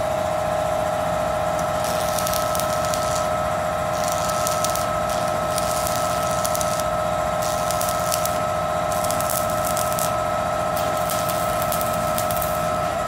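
Electric arc welding on a truck bed's steel floor plate: the arc crackles and hisses in spells of a second or two as short stitch welds are laid, over a steady whine.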